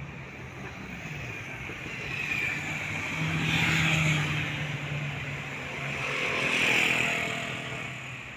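Two vehicles passing one after another, engine hum and tyre noise swelling and fading, the first about four seconds in and the second near seven seconds.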